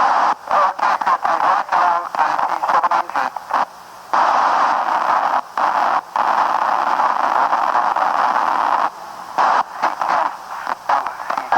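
Ham radio receiver tuned to the International Space Station's amateur relay, giving static and choppy, broken-up signal fragments that cut in and out. About four seconds in the fragments give way to steady hiss for several seconds, and the choppy cutting in and out returns near the end.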